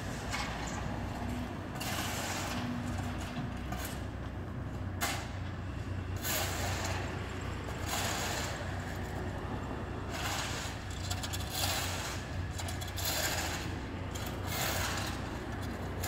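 Street roadworks noise: a machine's engine running steadily with a low hum, with rushes of louder noise every second or two and road traffic.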